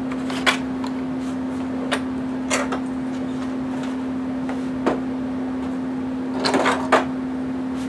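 Scattered clicks and knocks of a hollow 3D-printed plastic airplane fuselage being handled and turned over on a workbench, with a small cluster near the end, over a steady low hum.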